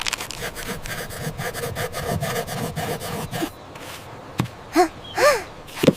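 Rapid, rhythmic scraping like sawing or rasping, for about three and a half seconds. It is followed by a single click and three short squeaky calls that rise and fall in pitch near the end.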